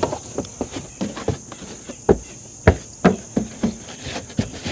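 A hand patting and pressing down the carpeted trunk floor board of a 2023 Subaru WRX, making a quick, irregular run of dull knocks, about three a second, with a few louder ones in the middle. This is the check that the board sits flush over the fitted donut spare. Steady insect chirring carries on underneath.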